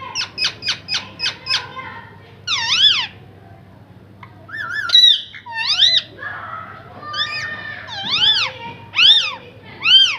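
A parrot calling: a quick run of about seven short chirps in the first second and a half, then a series of loud whistled squawks that each rise and fall in pitch.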